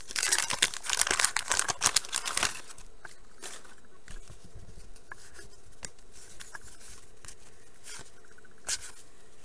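Paper wax-pack wrapper of a 1989 Bowman baseball card pack crinkling and tearing open for about two and a half seconds. Then soft ticks and rustles of the cardboard cards being handled, with a brief louder rustle near the end.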